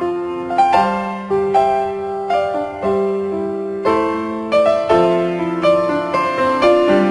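Background piano music: a melody of struck notes, about two a second, over lower held notes.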